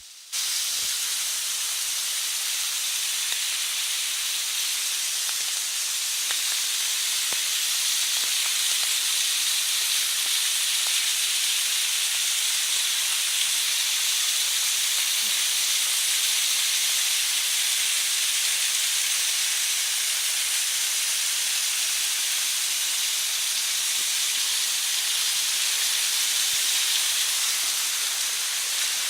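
A waterfall rushing steadily, running full after heavy rain.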